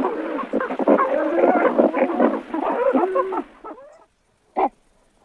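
A herd of walruses calling over one another in a dense, wavering chorus of bellows. It thins out and stops about three and a half seconds in, leaving one short bark-like call near the end.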